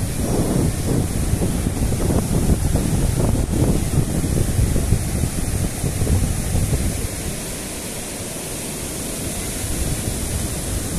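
Surf washing in over a flat sandy beach, mixed with wind rumbling and buffeting on the microphone; the wind eases a little about seven seconds in.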